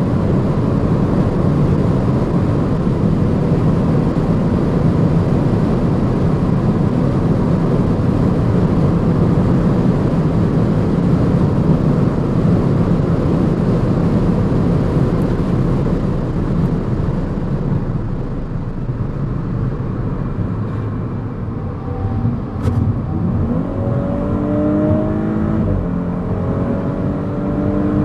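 Audi S5 Sportback's V6 engine heard from inside the car at high autobahn speed, under a heavy rush of wind and tyre noise. Near the end the car accelerates: the engine note climbs, drops at an upshift, and climbs again.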